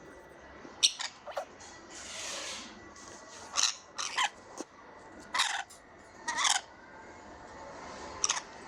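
Pet lovebird giving a series of short, sharp, high chirps and squawks, one or a few at a time every second or so. A brief hiss comes about two seconds in.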